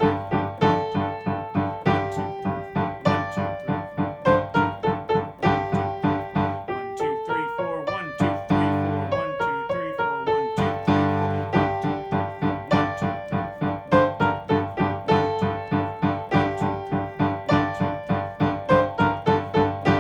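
Piano playing a beginner's piece in G position: short, detached left-hand notes with an accent on each first beat, under a right-hand melody, in a steady beat. About seven seconds in, a quicker run of notes climbs and falls for a few seconds before the steady pattern returns.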